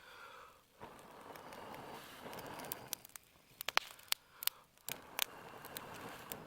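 Someone blowing long breaths through a blow tube into a small kindling fire, two long rushes of air, with sharp crackles and snaps of small twigs between them. The damp wood is slow to catch.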